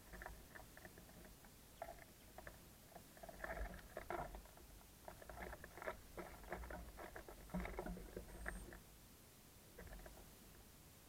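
Small birds pecking and scrabbling at seed on a wooden bird feeder: quick irregular taps and light scratches, coming in flurries with short pauses between them.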